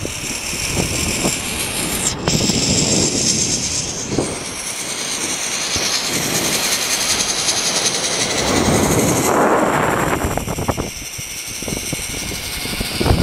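Zipline trolley's pulleys running along the steel cable at speed: a steady rushing whir with a high hiss, swelling about nine seconds in and easing briefly a little after.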